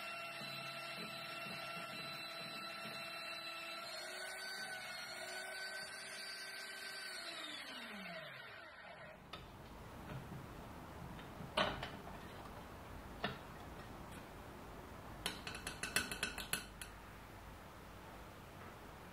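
Small benchtop drill press motor running with a steady hum, shifting slightly in pitch about four seconds in, then winding down to a stop after about eight seconds. Then a few sharp metallic clinks and a quick clatter of small metal parts.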